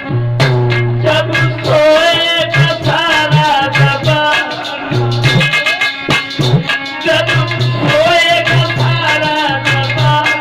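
Music from a Hindi sad song: a bending melody line over a steady drum beat and shaker.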